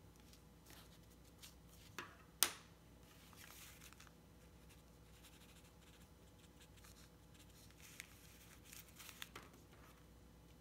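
Drawing tools being handled at a desk: two sharp clicks about two seconds in, the second the loudest, then a faint paper rustle, and a few small clicks near the end, over quiet room tone.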